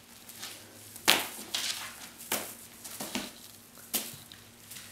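Cat wand toy with feathers and tinsel sparkle strands swishing and rustling as it is whipped about, about half a dozen short, sharp swishes.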